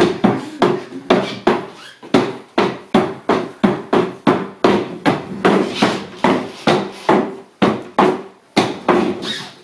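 A small wooden folding table rocking and knocking its legs against a wooden floor: a fast, regular run of sharp wooden knocks, about three a second, that stops just before the end.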